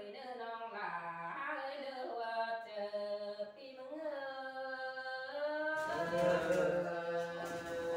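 Unaccompanied singing by one voice: a slow folk melody of long, held notes that slide from pitch to pitch. About six seconds in, the sound turns rougher and fuller.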